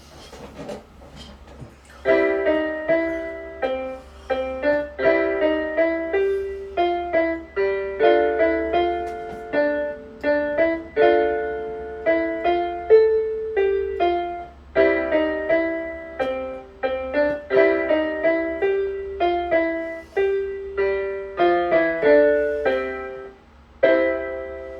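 Piano playing a piece of struck notes and chords, louder from about two seconds in, with a faint steady low hum underneath.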